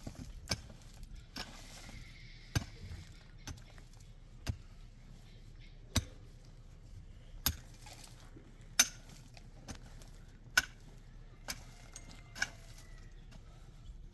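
A series of sharp, separate clicks and knocks, roughly one a second and irregular, some with a short metallic ring, over a faint steady low hum.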